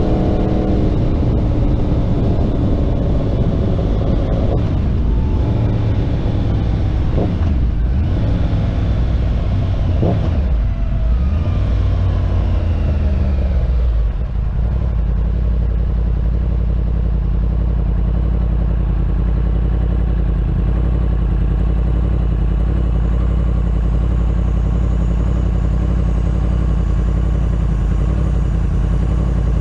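Yamaha R1 inline-four engine through a Graves aftermarket exhaust, slowing for a stop with its pitch swinging down and up several times. About fourteen seconds in it settles into a steady low idle.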